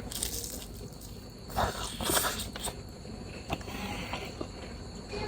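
Eating sounds: chewing and crunching, with a few short noisy bursts, the strongest about a second and a half and two seconds in.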